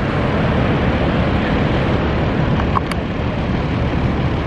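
Ocean surf breaking, with wind buffeting the microphone: a steady, loud rushing noise with no clear pitch.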